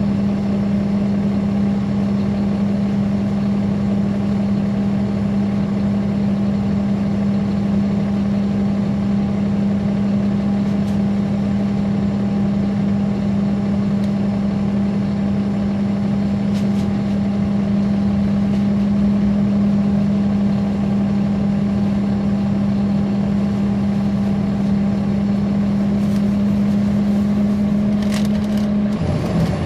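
Caterpillar C13 ACERT diesel engine of a NABI 416.15 transit bus, heard from on board, running with a loud, steady drone that holds one pitch; the sound changes near the end.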